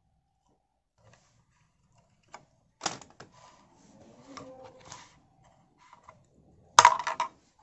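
Clicks and knocks of small hard parts and tools being handled: one sharp knock about three seconds in, a soft rustle, then a quick cluster of loud clicks near the end.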